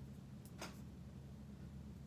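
Faint handling noise from unboxing, a brief rustle or click about half a second in and another just after, over a steady low hum.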